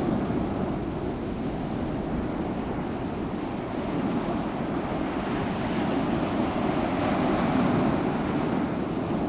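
Sea waves washing in a steady surf, swelling a little a few seconds in, with some wind on the microphone.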